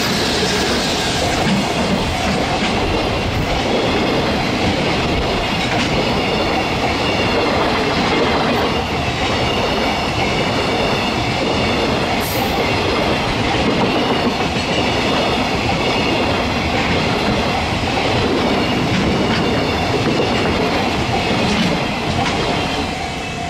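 A freight train's loaded container wagons roll past close by with a loud, steady rumble and clatter of wheels over the rails. There is a brief high squeak about halfway through, and the noise falls away near the end as the last wagon passes.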